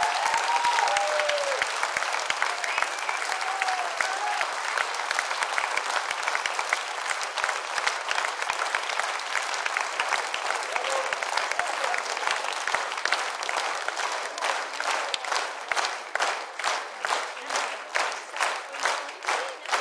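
A theatre audience applauding, with a few cheers and shouts in the first seconds. About two-thirds of the way in, the clapping falls into unison: steady rhythmic clapping at about two and a half claps a second.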